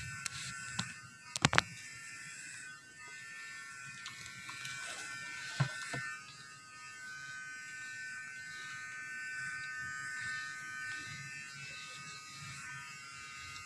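Electric hair clipper buzzing steadily while cutting hair, with a few sharp knocks about a second and a half in and again near six seconds.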